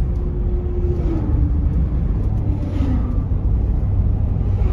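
Cabin noise of a car driving at highway speed: a steady low road rumble, with a faint hum that drops slightly in pitch about a second in.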